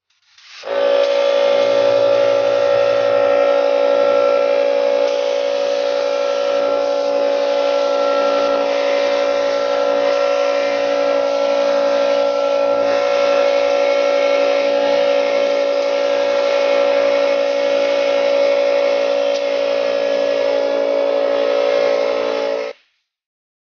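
Air compressor running steadily while an air spray gun lays paint on a panel: a constant droning hum with a hiss over it. It starts just under a second in and cuts off suddenly near the end.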